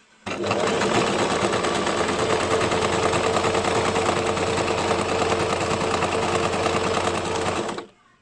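Basic electric sewing machine running at a steady speed, stitching. It starts abruptly just after the beginning, runs evenly for about seven and a half seconds, and stops near the end.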